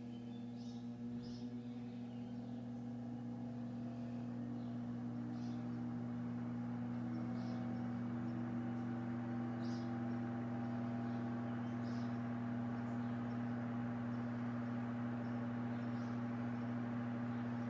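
Vintage Mimar 425 electric fan running on a cold start: a steady motor hum with a growing rush of air that gets louder over the first several seconds, then holds. The fan is running a little slow because it is very cold.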